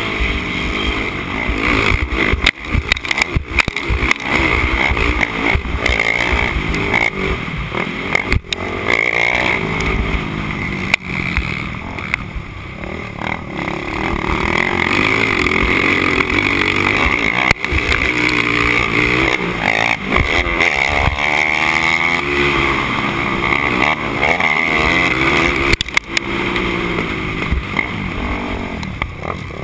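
Honda TRX450R quad's single-cylinder four-stroke engine revving hard and easing off again and again while racing on dirt, its pitch rising and falling, with sharp knocks now and then from the chassis over bumps.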